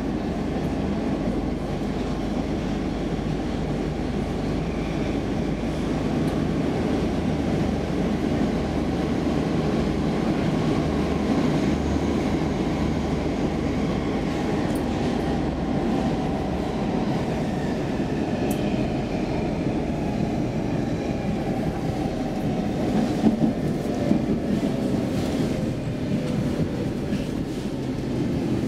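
Inside a Stockholm Metro C15 car running through a tunnel: a steady rumble of wheels and traction motors. Near the end a motor whine falls in pitch as the train slows into a station, with a few sharp wheel clacks over rail joints.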